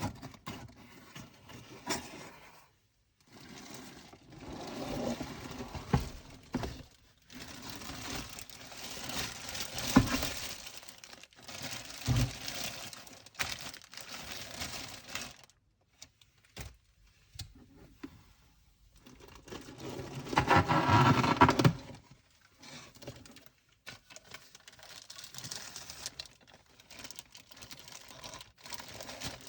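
Packaging being handled during an unboxing: bouts of crinkling and rustling wrapping, with scattered clicks and a few sharp knocks. The longest, loudest crinkling comes about two-thirds of the way through.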